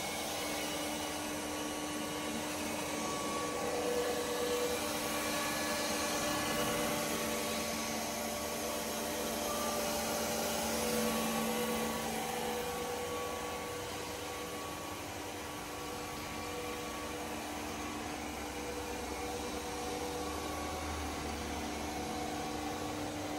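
Steady whirring hum of running electric machinery, with a few constant low tones held throughout.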